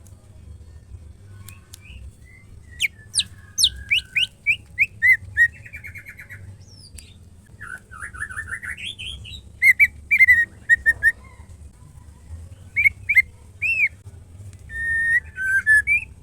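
Female white-rumped shama (murai batu) calling: a fast run of sharp down-slurred whistles, then a rising trill, clusters of loud chip notes and a few arched whistles, over a low steady hum. It is a female's call of the kind used to rouse male shamas into singing.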